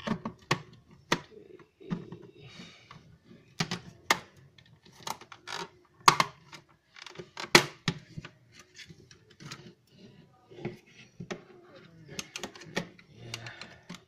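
Plastic router case being pried open: snap latches clicking and the housing knocking and rattling as it is worked apart, in irregular sharp clicks, the loudest two about six and seven and a half seconds in.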